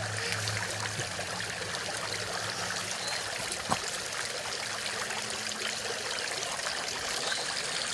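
Fountain water running and splashing steadily into its stone basin, with a single light tap about three and a half seconds in.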